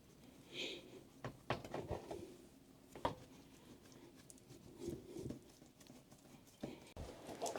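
Faint kitchen handling noises: scattered light clicks and knocks with a few soft thuds, and a short hiss about half a second in.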